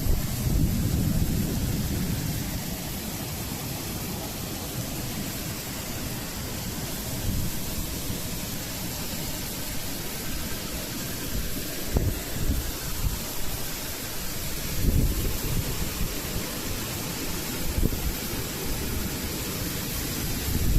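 Strong wind gusting in a storm, buffeting the microphone with a low, irregular rumble over a steady rushing hiss; the gusts swell and ease several times.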